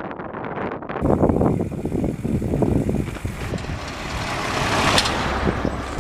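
A road vehicle passing, with a low rumble and a rushing noise that swells to a peak near the end and then eases.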